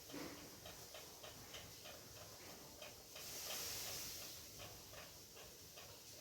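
Ceiling fan running with a faint, regular click about three times a second. A soft rush of air swells about three seconds in and fades again.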